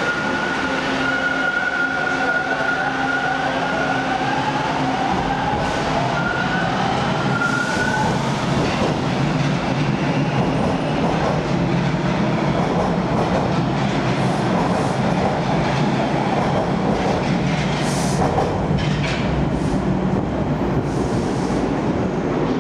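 TTC T1 subway train pulling out of an underground station. Its traction motors give a whine that rises in pitch over the first several seconds of acceleration, then steady wheel-on-rail rumble and clatter carry on as the cars run past into the tunnel, with a brief high squeal near the end.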